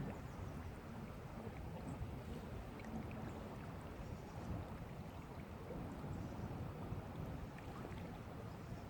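Faint, steady rush of a small river's flowing water, with a low rumble underneath.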